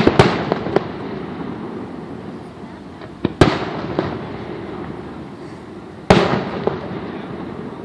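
Aerial fireworks shells bursting: three sharp booms about three seconds apart, each followed by a rolling echo and a few smaller pops.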